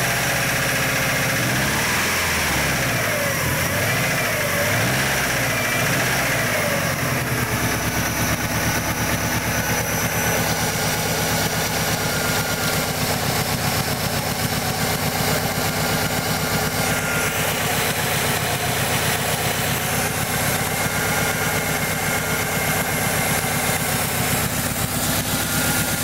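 Subaru EJ25D 2.5-litre flat-four engine revved up and down a few times, then settling about seven seconds in to a steady idle. It runs with a knocking noise that the owner takes for piston slap, at 243,051 miles.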